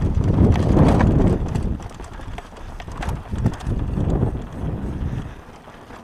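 Downhill mountain bike running fast over a rough dirt and stone trail: tyres rumbling and the bike knocking and rattling over bumps, with wind buffeting the microphone. The ride is loudest in the first second or so, then comes in uneven surges.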